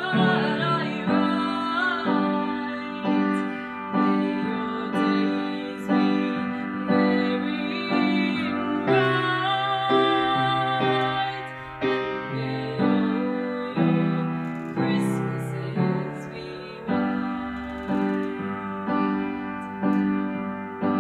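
A girl singing while accompanying herself on a grand piano, chords struck about once a second under her voice.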